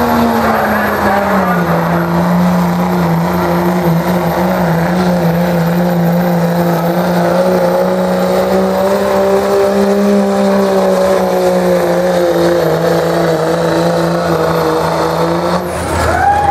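Second-generation Dodge Ram's 5.9 L Cummins turbo-diesel held at high, steady revs under full load while pulling a weight-transfer sled, with a high turbo whistle over the engine note. Near the end the driver lets off and the engine and whistle drop away suddenly as the pull ends.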